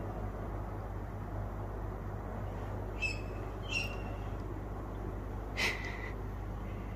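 Tawny owl calling: two short, sharp cries a second apart about three seconds in, then one longer, lower call near the end, over a steady low hum.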